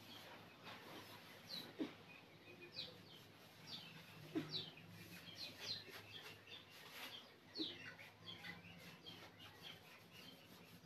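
Faint bird chirps: many short, quickly falling high notes scattered throughout, over a low steady hum.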